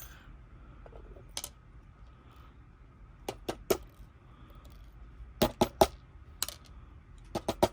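Small lock pins from a Kwikset cylinder being tipped out and falling: scattered sharp metallic clicks that come singly and in quick little clusters, with the loudest run about two-thirds of the way through.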